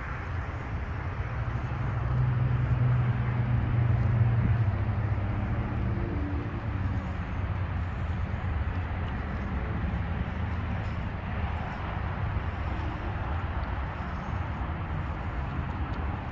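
Nissan Patrol Y60's 2.8-litre turbo-diesel inline-six idling steadily, the idle growing louder for a few seconds about two seconds in before settling back.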